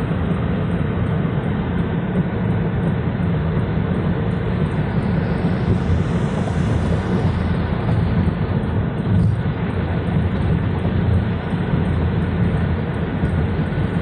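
Steady road and engine noise of a car driving on the freeway, heard from inside the cabin. A higher hiss swells and fades midway, and a brief thump comes a little after nine seconds.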